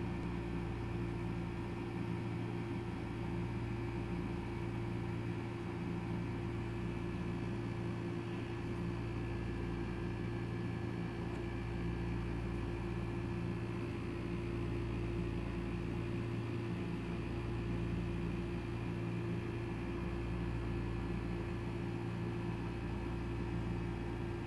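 Steady low mechanical hum with a few constant tones over a light hiss, unchanging throughout.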